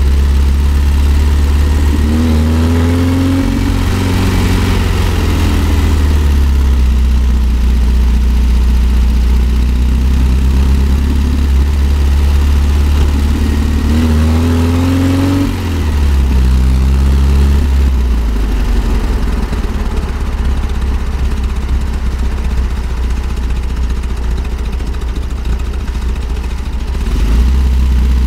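1964 Volkswagen Type 2 Microbus's air-cooled flat-four engine pulling the bus uphill. The revs climb and then drop twice, about three seconds in and again about fifteen seconds in. The engine note thins out from about eighteen seconds and picks up again near the end.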